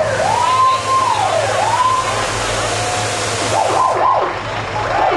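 Fire engine siren wailing, its pitch rising and falling about once a second, then changing to a faster yelp near the end.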